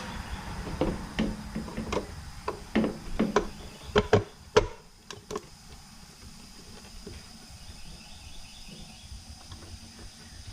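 A quick series of sharp knocks and clicks over the first five seconds, the loudest about four seconds in, then quieter with crickets chirping faintly in the background.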